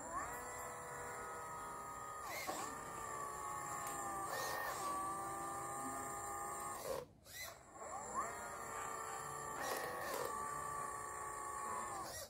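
Electric motor and hydraulic pump of a model RC excavator whining steadily. The pitch dips and shifts as the boom and bucket work the sand. It cuts out briefly about seven seconds in, then starts again with a rising whine.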